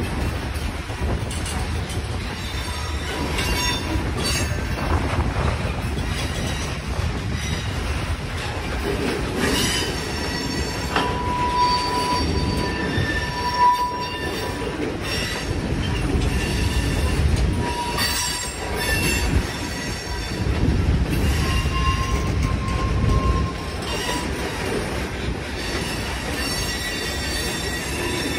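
Freight cars of a long train rolling past with a steady low rumble of wheels on rail. High wheel squeals come and go throughout.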